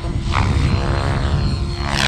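Radio-controlled helicopter in flight: a steady pitched drone from the rotor and motor, with a brief shift in pitch a little way in.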